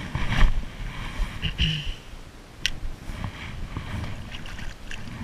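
Wind buffeting a body-worn camera's microphone as a low uneven rumble, with handling rustles and knocks and one sharp click about two and a half seconds in.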